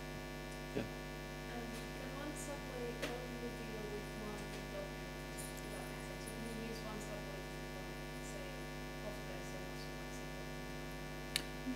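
Steady electrical mains hum from the sound system, with a faint, distant voice underneath: an audience member asking a question off-microphone.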